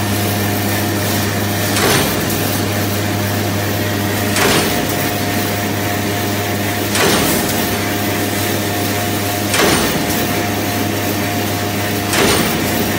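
High-speed wire straightening and cutting machine running: a steady hum and whirr from its drive and straightening section, with a short sharp clack about every two and a half seconds, five times, as the cutter shears off each length of wire.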